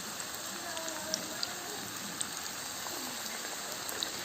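Spoonfuls of wheat-flour batter frying in hot oil: a steady sizzle with a few small pops scattered through it.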